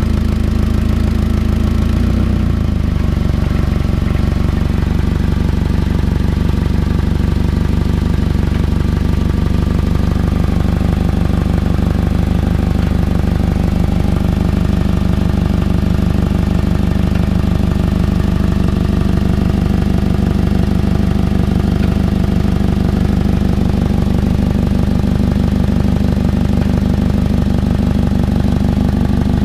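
2006 Toyota Camry's engine and exhaust running steadily at idle, settling slightly lower about two seconds in. The owner suspects an exhaust leak or a clogged catalytic converter behind its check engine light.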